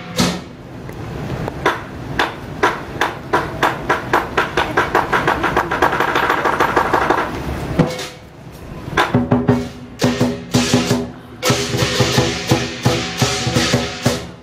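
Lion dance percussion: a large lion drum beaten with sticks, together with a hanging gong and cymbals. The drum strokes quicken into a fast roll, drop off briefly about eight seconds in, then start again with the gong ringing and cymbals crashing.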